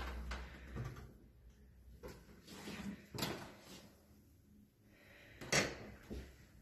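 An interior door being handled: a few scattered clicks and knocks from the door and its latch, the loudest about five and a half seconds in, over a low rumble in the first second.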